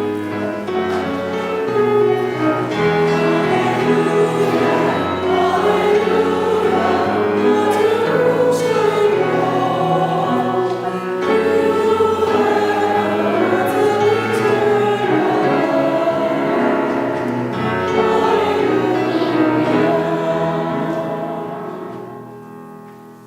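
Choir singing the gospel acclamation in sustained chords; the singing fades out near the end.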